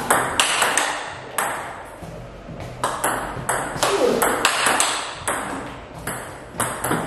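Table tennis rally: the celluloid-type ball is struck back and forth by the bats and bounces on the table in a quick run of sharp clicks, a few a second. One bat is a TIBHAR Nuytinck blade of five wood plies plus two hybrid ZC carbon plies.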